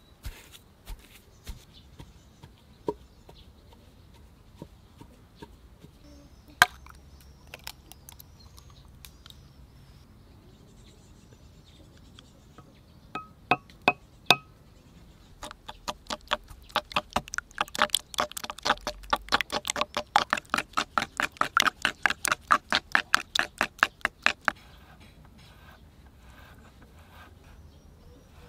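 A spoon clicking and clinking against a rough ceramic bowl, a few taps with a short ring, then fast, even beating against the bowl for about nine seconds at roughly five strokes a second, as something is mixed in it. Scattered soft knocks and one sharp knock come earlier.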